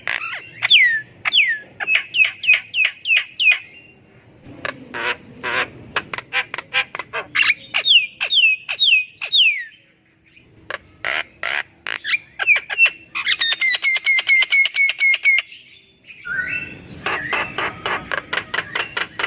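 Javan myna singing: harsh chattering phrases of rapid clicks mixed with falling whistled notes, given in bouts with short pauses between them. About two-thirds through there is a fast, evenly repeated trill.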